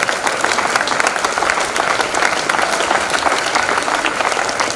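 Large crowd of spectators applauding: dense, steady clapping of many hands, kept up at a loud level.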